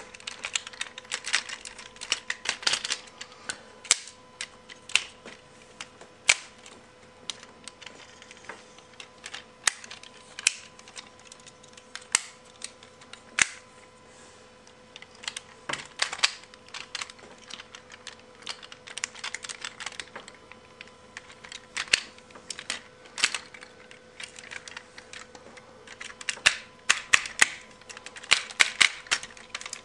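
Transformers G1 Sixshot figure's parts clicking and snapping irregularly as it is transformed by hand into its Jeep mode, the clicks coming thickest near the start and near the end.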